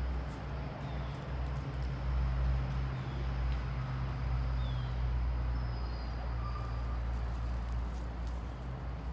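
Steady low hum with a few faint, high, gliding chirps over it.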